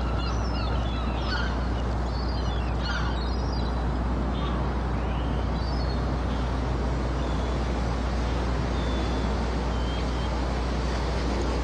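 Outdoor ambience: a steady rumble and hiss, with several high gliding calls in the first three seconds and a few faint short chirps later on.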